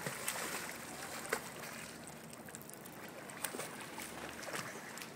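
Water splashing as a child swims across a pool, with many small, irregular splashes from her arm strokes and kicks over a steady wash of water.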